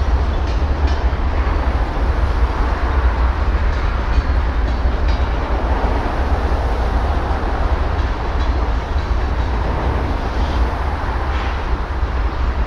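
Norfolk Southern diesel locomotives running as the train moves through the yard, a steady low rumble.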